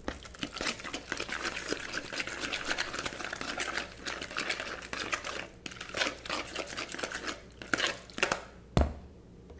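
Spoon stirring and mashing thick guacamole in a mixing bowl: a fast, continuous wet scraping and squishing for about five seconds, then slower separate strokes, and one sharp knock near the end.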